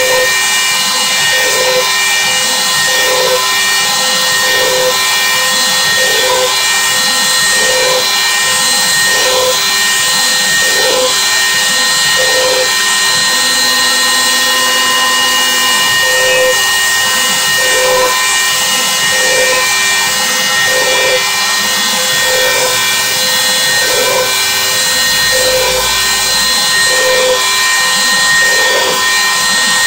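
Bosch 1-horsepower trim router mounted as a CNC spindle, running steadily at speed: a high, even whine over a hiss of motor and fan noise.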